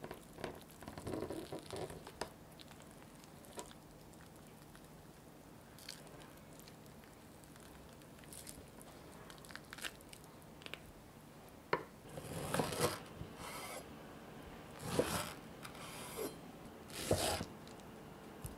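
A metal spoon scraping soft, ripe mango flesh away from its skin, with wet squelching and small clicks. Several louder strokes come in the second half, ending with a kitchen knife slicing through the mango onto a wooden cutting board.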